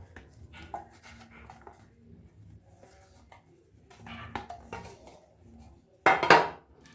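Light clinks and knocks of a loaf pan and kitchen utensils being handled while the pan is oiled. A short, loud burst of sound about six seconds in.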